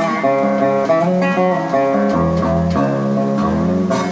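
Amistar resonator guitar being played: plucked notes ring over held low notes, with one note gliding up and down in pitch about three and a half seconds in.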